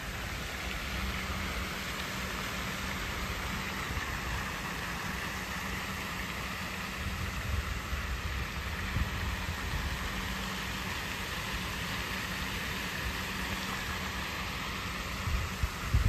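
Steady outdoor background of a low hum of distant traffic under an even hiss, with wind buffeting the microphone about seven to nine seconds in.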